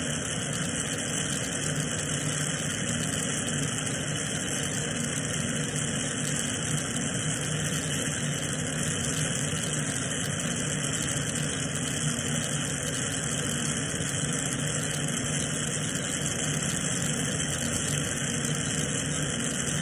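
Glassblowing bench torch burning steadily with a large flame: an even rushing hiss with a faint low hum under it, as clear glass coiled over the colour is melted in.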